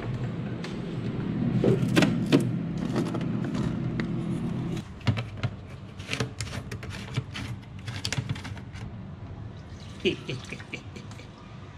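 Water gun being filled at a sink. A steady rush of running water stops abruptly about five seconds in. Clicks and knocks of the plastic gun and its cap being handled follow, then water is poured into the tank from a plastic bottle near the end.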